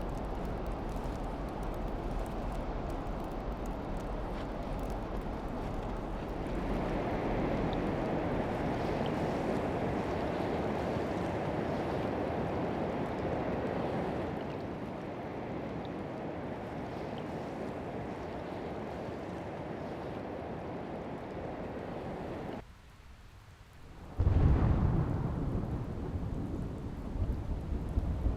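Steady rush of moving water in the natural landscape, as from a waterfall or surf. It drops away briefly about 23 seconds in, then comes back louder and deeper.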